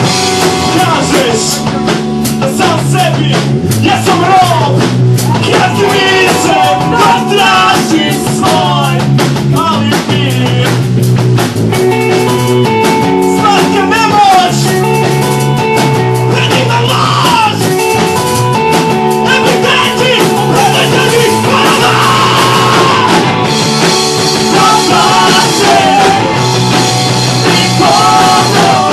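Indie rock band playing live: electric guitars and a drum kit, with sung vocals over them.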